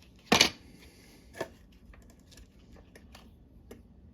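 Pepper grinder parts being handled and fitted together by hand: a sharp plastic click about half a second in, a smaller knock about a second later, then a few faint ticks.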